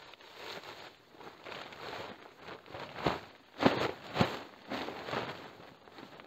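Footsteps, about two a second, with a few heavier steps a little past the middle.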